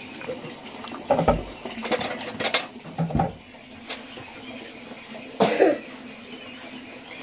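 A puppy eating rice from a ceramic bowl: several sharp knocks and clinks of the bowl, irregularly spaced.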